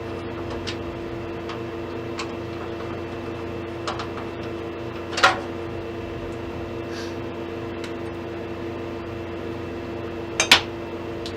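Screws being taken out of a steel PC case with a screwdriver: scattered light clicks and clinks, with a louder metallic knock about five seconds in and a quick double knock near the end. A steady hum runs underneath.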